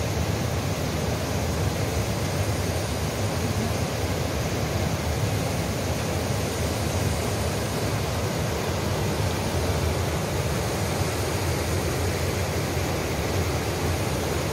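Mountain river rapids rushing over boulders: a steady, unbroken rush of white water.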